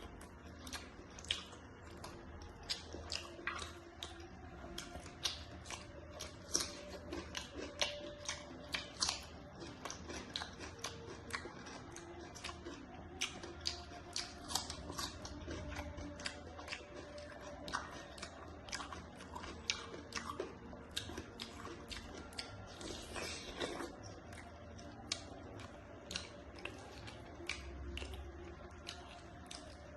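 A person chewing and biting food: many short, irregular mouth clicks, several a second, without a break.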